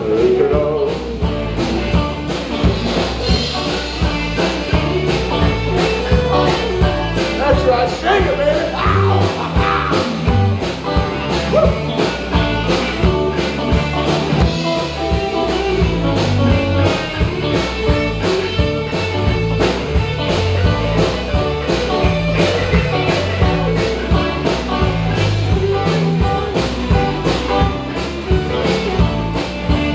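A rock and roll band playing, with a steady drumbeat and bass line.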